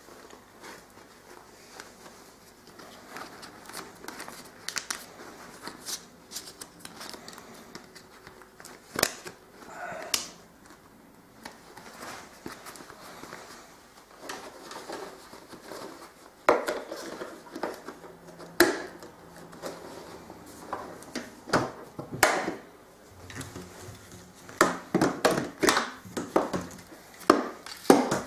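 Rustling and crinkling of a fleece vacuum-cleaner dust bag being handled and fitted into the bag compartment of an ETA 0502 Mio II vacuum cleaner, with scattered plastic clicks and knocks. Near the end a quick run of louder plastic clicks as the lid is shut and the hose is pushed into its inlet.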